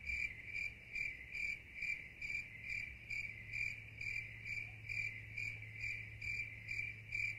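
Cricket chirping steadily, about two short chirps a second, over a faint steady low hum.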